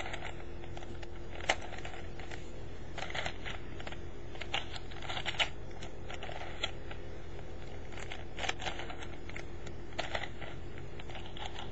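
A plastic 4x4x4 Rubik's Revenge cube being turned by hand through a move sequence, its layers clicking and clacking in short, irregular runs.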